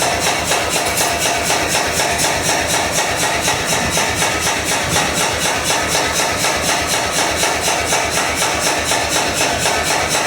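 Mechanical power hammer pounding at a steady rate of about five blows a second, fullering hot axe steel to spread the cheeks.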